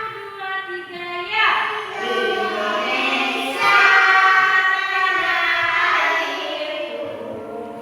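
A child singing, in long drawn-out held notes.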